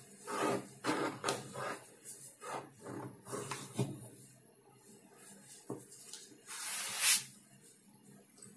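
Fresh banana leaf rustling and crinkling in a string of irregular short rustles as hands work the leaf cone tied around a head, during filling of a thalapothichil herbal-paste head pack. A louder rising rustle comes about seven seconds in.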